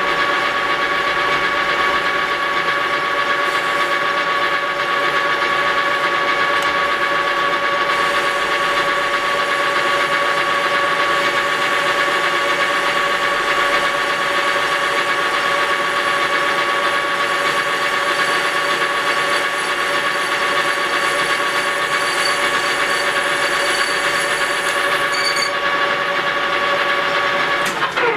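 Metal lathe running at speed with a steady whine while the tool takes a smoothing cut across the face of an aluminum part. Right at the end the whine drops in pitch as the lathe winds down.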